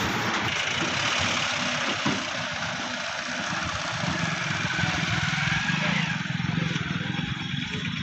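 A vehicle engine running steadily under a broad, continuous hiss of outdoor noise.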